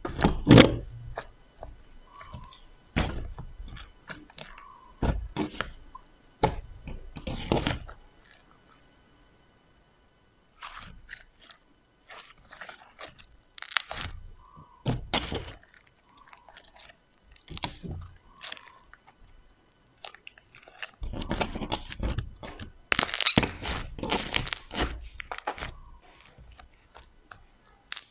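Soft fluffy slime pulled out of a glass jar and then squished, pressed and stretched by hand, giving irregular sharp clicks and pops. It goes quiet for about two seconds a third of the way in, and there is a dense run of pops near the end.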